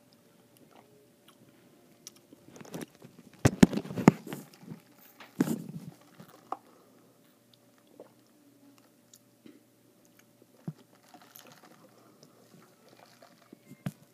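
Someone drinking iced coffee from a cup held right at the microphone: slurping and swallowing with clicks and knocks from the cup. The loudest cluster comes about three and a half to four seconds in, with another about five and a half seconds in.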